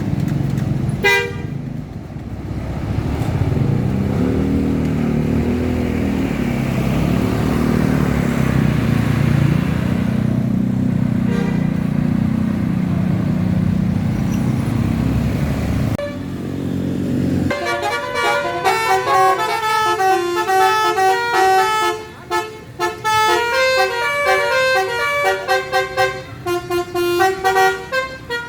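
A bus's large diesel engine runs with a steady low drone. After about seventeen seconds a multi-tone 'telolet' bus horn starts playing a quick tune of changing notes, pulsing note by note toward the end.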